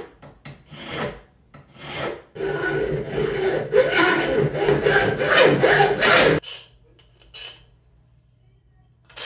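Hand hacksaw cutting a slot in a 6061 aluminum bearing plate: a few short scrapes, then about four seconds of fast back-and-forth strokes from about two seconds in, stopping abruptly.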